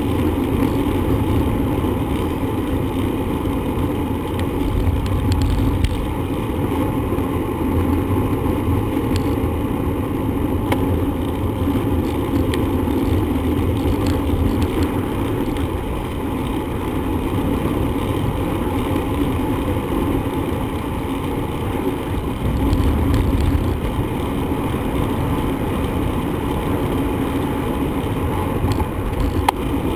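Steady low road and wind noise of a bicycle ride, swelling a little a few times.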